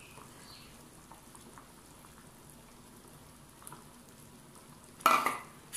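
Pot of tamarind curry simmering on a low flame with faint, steady bubbling. Near the end a short, louder burst of sound cuts in.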